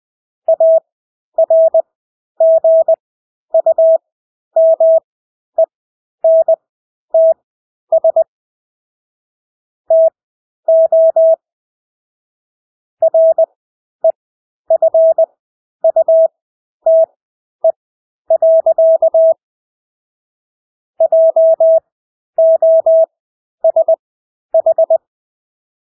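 Morse code (CW) practice tone: a single steady mid-pitched beep keyed in dots and dashes at 20 words per minute, with widened Farnsworth gaps between characters and longer pauses between words.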